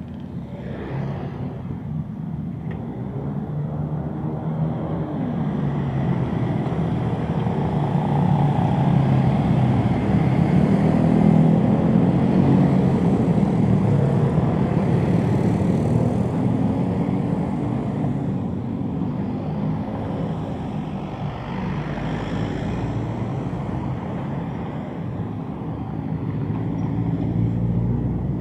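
Road traffic of motorcycles and cars passing around a roundabout, with engine noise that builds to its loudest about halfway through, eases off, then swells again near the end.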